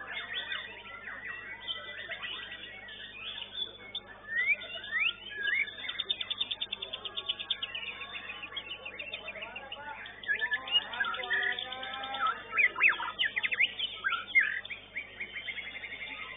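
White-rumped shama (murai batu) singing: a fast, varied run of chirps, whistled glides and rapid trills, getting louder a little past the middle.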